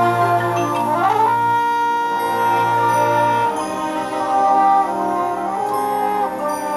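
High school marching band's brass section playing sustained chords over a low held bass note, with a quick upward slide about a second in into a long held high note.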